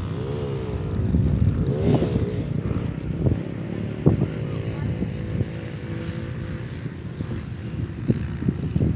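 A motor engine running, its pitch rising and falling twice in the first couple of seconds, over a steady low rumble of wind on the microphone.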